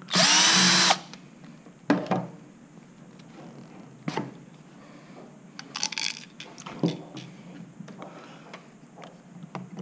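Cordless drill with a Phillips bit spinning for about a second as it backs a screw out of a plastic handle grip. A few scattered clicks and knocks follow as the grip and screws are handled and set down.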